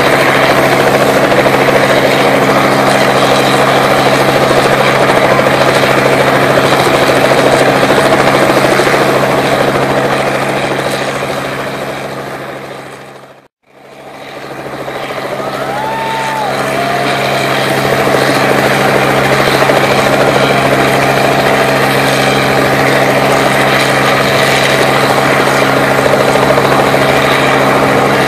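Robinson R44 helicopter hovering close by: a loud, steady rotor and engine din over a constant low hum. About halfway through, the sound fades out to silence for a moment and then fades back in.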